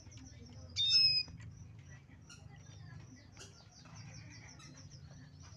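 Male red siskin calling again after its moult: one short, bright call about a second in, the loudest sound, among soft chips and twitters. A low steady hum runs underneath.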